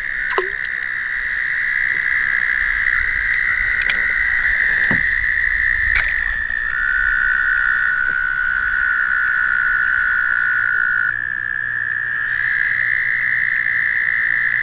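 A chorus of toads trilling: several long, steady trills at slightly different pitches overlap, one dropping out and another taking over partway through.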